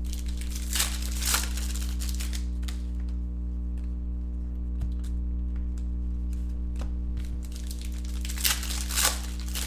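Foil wrappers of Prizm basketball card packs crinkling and tearing as the packs are handled and opened, in two bursts, about a second in and near the end, over a steady electrical hum.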